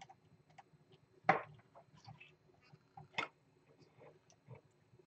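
Light clicks and taps of hands handling wires and a 3D-printer controller board on a wooden bench, with two louder knocks, one about a second in and one about three seconds in. The sound cuts off just before the end.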